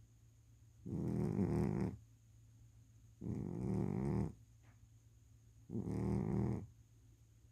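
A sleeping cat snoring: three loud, rasping snores, each about a second long, coming regularly about every two and a half seconds with quiet breaths between.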